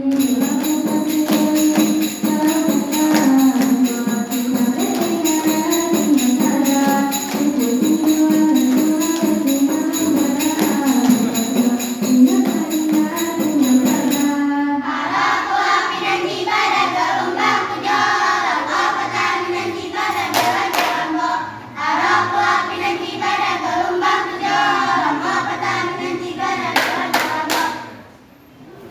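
Saman dance song: voices singing in unison over quick, rhythmic hand claps and body slaps. The singing is lower for about the first half, then switches to a higher line, and everything stops just before the end.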